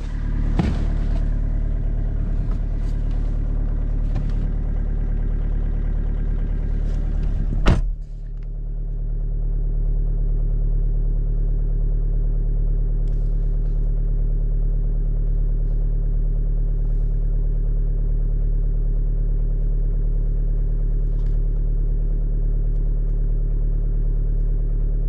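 VW Golf VII 1.6 TDI four-cylinder diesel idling steadily after a cold start at −8 °C, at about 1000 rpm. There is a single sharp thump about eight seconds in; the rest is the even idle.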